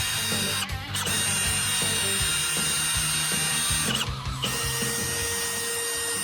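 Power drill whining steadily as it bores lubrication holes through a new aluminium two-stroke piston for the cylinder bridge. It stops briefly about a second in and again about four seconds in, then runs on. Background music plays underneath.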